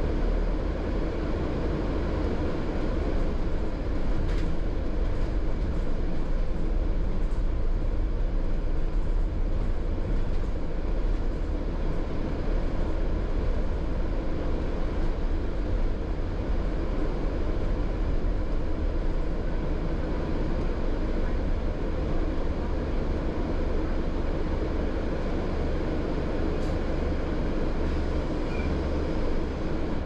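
Steady low rumble of a double-decker bus in motion, heard from the upper deck: engine and road noise carried through the cabin.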